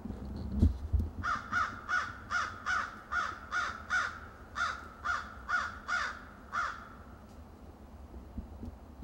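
A crow cawing in a rapid series of about thirteen short harsh caws, roughly two or three a second, stopping about two seconds before the end. A couple of low thumps come just before the caws begin.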